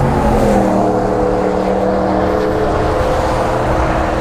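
A passing motor vehicle's engine: a steady pitched hum whose pitch drops slightly near the start and then holds.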